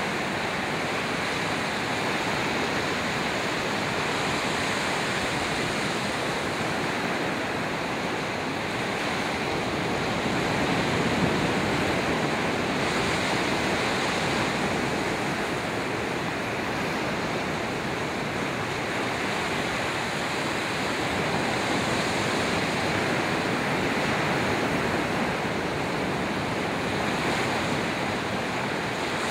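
Ocean surf: small waves breaking and washing in a steady rush that swells a little louder now and then.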